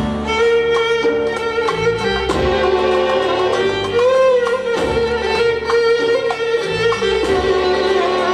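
Arabic belly-dance music: a violin plays a held, wavering melody, with scattered hand-drum strokes beneath it.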